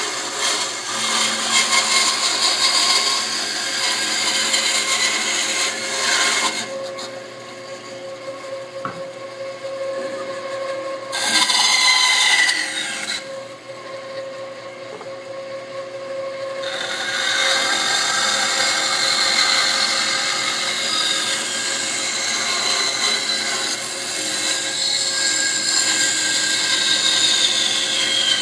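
Band saw cutting the curved profile of an ogee foot out of a wooden block: the hiss of the blade in the wood over a steady motor hum. The cutting drops away twice for a few seconds, about a quarter of the way in and again just past the middle, leaving the saw running free.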